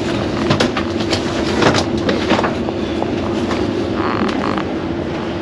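Steady hum inside an ÖBB passenger train carriage, with a few short clicks and knocks in the first couple of seconds.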